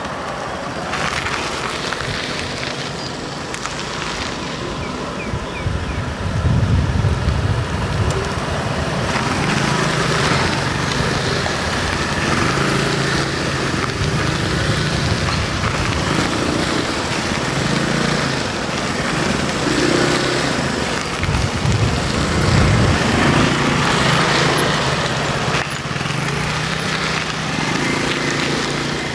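Motor scooters riding past one after another in a steady stream, their small engines running, with the sound swelling as the nearer ones go by, notably about six seconds in and again around twenty-one seconds in.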